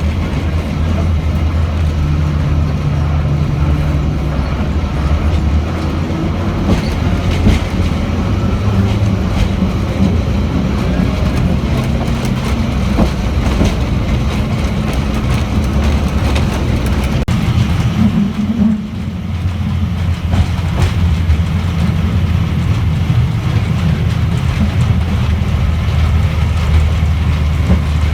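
Diesel locomotive of the Botchan Ressha, a replica of a Meiji-era steam train, running steadily, heard from aboard with wheel and rail clatter. The engine hum dips and shifts briefly about two-thirds of the way in.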